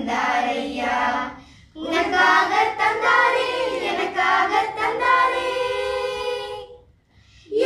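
A group of girls singing a Tamil Christmas song together in unison. There is a short break for breath about 1.7 s in, and a long held note near the end before a brief pause.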